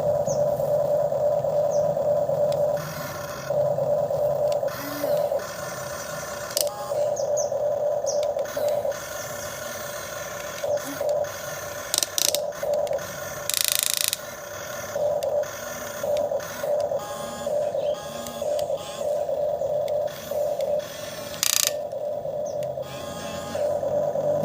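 Electric motors of a radio-controlled excavator whining. They run steadily for about three seconds, then start and stop in short bursts with scattered clicks and scrapes as the machine moves in fits.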